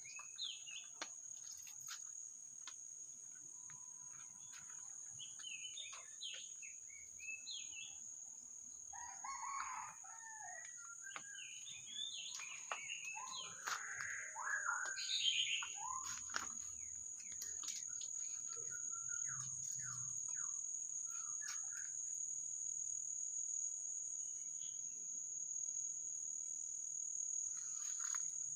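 Garden ambience: a rooster crowing in the middle, with small birds chirping, over a steady high drone of insects.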